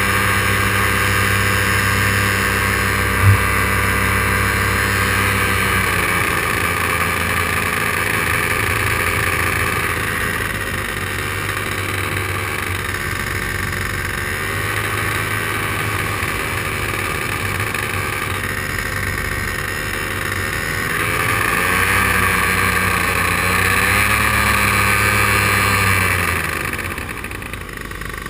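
Paramotor engine and propeller running in flight, eased back about six seconds in, opened up again a little after twenty seconds, then throttled down near the end. A single sharp click about three seconds in.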